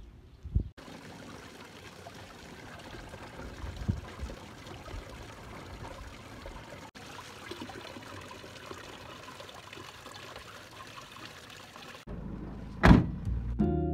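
Water pouring steadily into drinking-water containers, with a brief break about seven seconds in. Near the end the water stops and a single loud thump follows.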